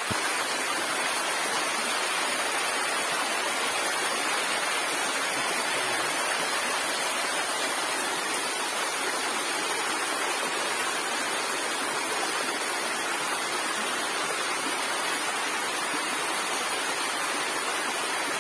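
River water rushing over rocks in a small cascade, a steady, even rush with no change throughout.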